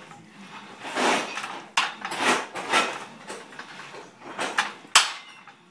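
Clattering and metallic clanks of gym weight equipment being handled, in several short bursts, with a sharp knock about five seconds in.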